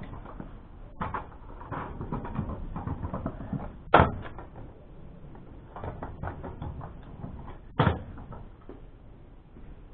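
Stunt kick scooter wheels rolling and clattering over concrete paving slabs, with two sharp bangs, about four seconds in and near eight seconds, as the scooter lands from hops.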